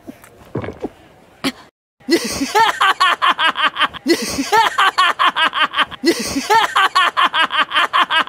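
Faint chewing clicks, then about two seconds in a cartoon man's loud, rapid laugh, a fast 'ha-ha-ha' that repeats the same two-second stretch over and over.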